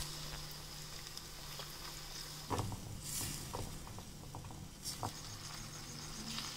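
Food frying in hot oil in a small wok: a faint, steady sizzle with a few knocks of a wooden spoon against the pan as it is stirred.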